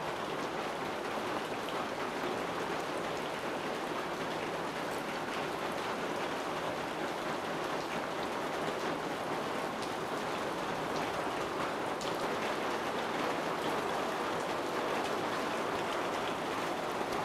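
Heavy rain pouring down steadily, an even hiss of drops hitting surfaces.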